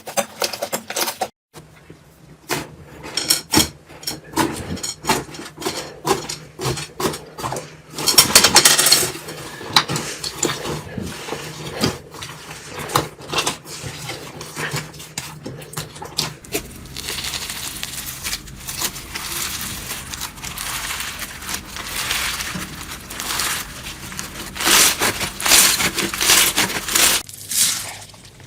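Slime being squeezed, poked and stretched by hand, giving rapid irregular clicks, pops and crackles. The texture changes abruptly twice as different slimes are handled.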